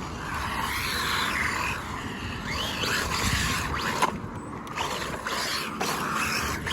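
RLAARLO ROG1 RC truck being driven on 3S: its electric motor and drivetrain whine, rising and falling with the throttle, with a sharp knock about four seconds in.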